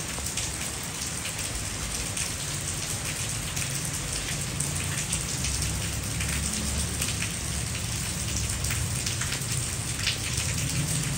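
Steady rainfall, with many individual raindrops ticking sharply close by.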